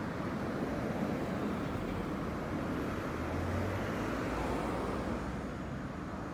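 Road traffic on a city street: a steady hum of cars and small trucks driving past, with one engine passing close by about halfway through.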